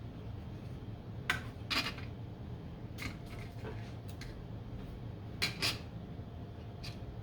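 Small hard parts or tools being handled on a workbench: about eight light, sharp clicks and clinks at uneven intervals, the loudest pair about a second and a half in and another pair about five and a half seconds in. A steady low hum runs underneath.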